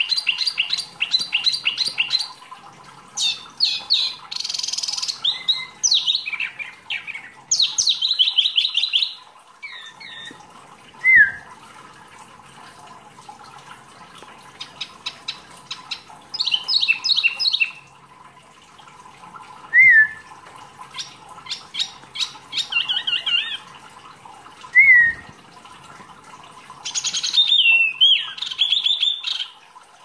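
Caged wambi mini songbird singing in bursts of fast, rattling trills and chattering phrases, broken by pauses and single short down-slurred whistles.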